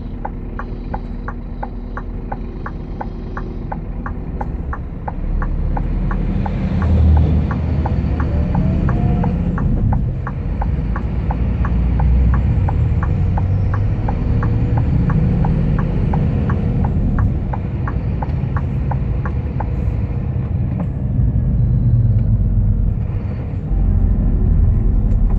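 Heavy diesel truck running, heard from inside the cab as it pulls away and drives on, a deep rumble that grows louder about five seconds in. A regular ticking, about two to three a second, runs along with it and stops about two-thirds of the way through.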